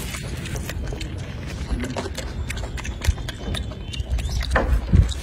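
A golden snub-nosed monkey picks at an orange's peel with its fingers, giving small scattered crackles and clicks of tearing peel. Under it runs a low rumble with a few louder low thumps near the end.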